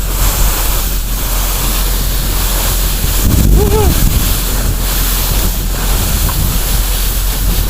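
Wind rushing hard over the microphone as the sled is swung around, over the steady low hum of the excavator's engine. A short rising-and-falling whoop comes about three and a half seconds in.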